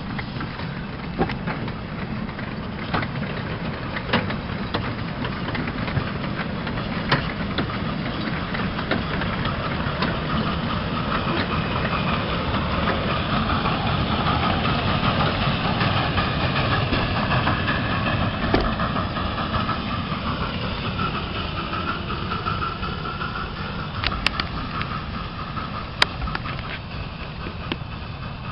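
Miniature steam locomotives hauling passenger coaches on a ground-level track: a steady rumble of wheels on rail with steam hiss and scattered sharp clicks.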